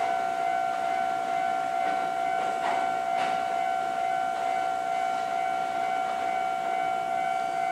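A Kintetsu electric commuter train moving slowly along the platform, under a steady, unbroken high-pitched tone with overtones. Two short hisses come at about two and a half and three seconds in.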